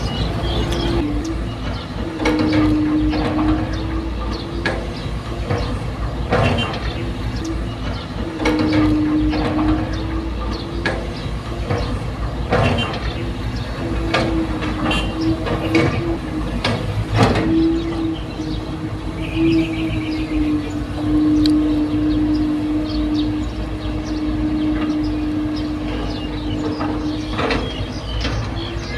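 Excavator at work: its diesel engine runs under load with a steady whine that shifts slightly in pitch, and repeated sharp knocks and clanks.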